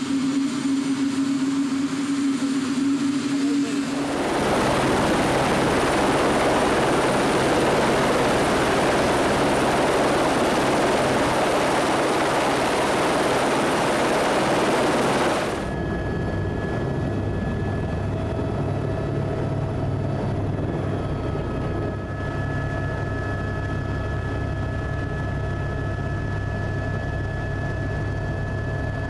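Turbine helicopter running on the ground with a steady whine. From about four seconds in it becomes a loud rush of rotor wash and engine noise close up. About fifteen seconds in this cuts to the steadier, lower drone heard inside the cabin in flight.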